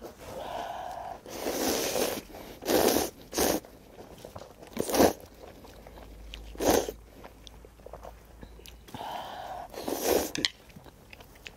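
A person slurping up ramyeon noodles from spicy tteokbokki (rabokki) in a series of separate sucks, with quieter chewing in between.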